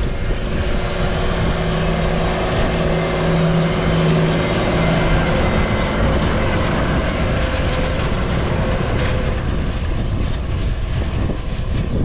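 A tractor pulling a large straw baler at work in the paddock: a steady engine drone mixed with the baler's running noise. It is loudest a few seconds in as the machine passes, then its engine tone fades away.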